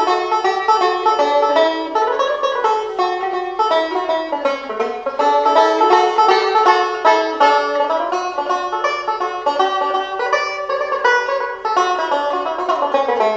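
1923 Paramount Style C tenor banjo played solo, a fast run of picked notes in an Irish hornpipe.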